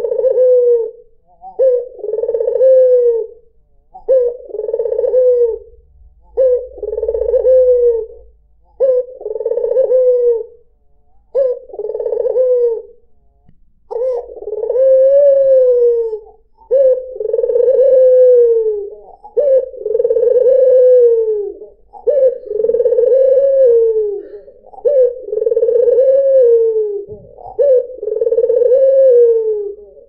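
White ringneck dove (puter putih) cooing over and over, about one low rolling coo every two seconds. From about halfway on the coos grow longer and run almost into one another.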